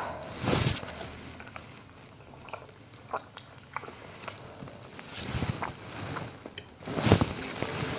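Close-miked eating of spicy instant noodles: small sharp clicks of a metal fork against the plate and of chewing. Three louder, short hissing mouth sounds come about half a second in, at about five and a half seconds, and near the end, the last the loudest.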